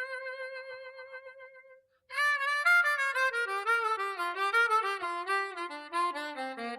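Instrumental music intro without vocals: a solo lead melody holds one long note, breaks off briefly about two seconds in, then plays a quick run of notes that steps downward.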